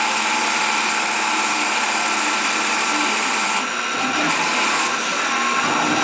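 A Tormach 1100 CNC with a Duality Lathe turning a wooden spindle: steady machine whine mixed with the hiss of the pointed tool cutting the wood. The sound shifts slightly about three and a half seconds in as the cut changes.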